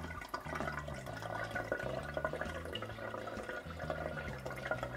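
Filtered cold brew coffee trickling in a thin, steady stream from a paper coffee filter into coffee in a clear container.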